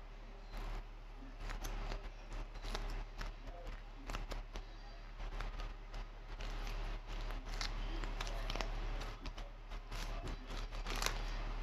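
Clay being crunched and squeezed in the hands close to the microphone: a stream of irregular, crisp crackles, with the loudest near the end.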